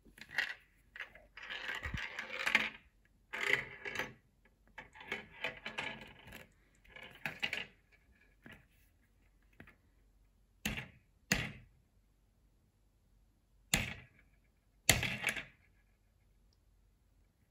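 Small ball rolling and rattling through the plastic tracks inside a clear Perplexus 3D maze sphere as it is tilted, in clattering bursts, then a few separate sharp clicks in the second half.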